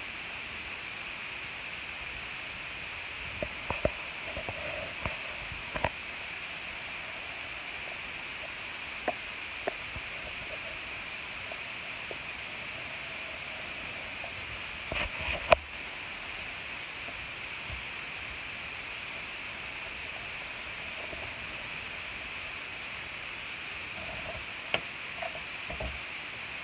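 Steady hiss with scattered light clicks and taps. About halfway through comes the loudest part, a quick cluster of sharp metallic clicks and a clack from a front-door key lockbox and latch being worked.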